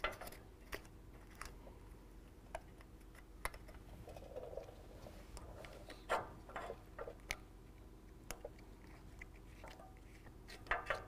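Scattered faint clicks and crinkles of square plastic retaining washers being pushed onto the threaded studs of a steel bolt plate, with light handling ticks.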